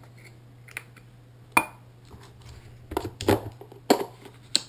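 Scattered sharp clicks and light knocks of a Nikon DSLR body, a lens and plastic lens caps being handled and fitted together as the lens is mounted on the camera. There is one louder click about a second and a half in and a quick cluster of clicks near the end, over a faint steady low hum.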